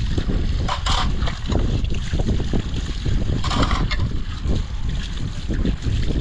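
Wind buffeting the microphone: a loud, uneven low rumble, with two brief hissy rustles, about a second in and about three and a half seconds in.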